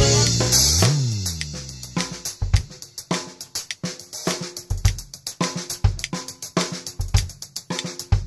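Acoustic drum kit: a loud accented hit at the start that rings out, then a sparse pattern of snare, bass drum and cymbal strokes over a faint backing track.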